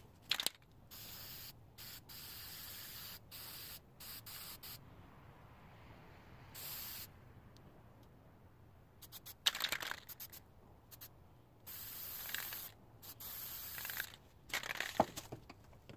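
Aerosol spray-paint can hissing in a series of short bursts, about a second each, as a hatchet head is painted, with a few louder short clatters in between.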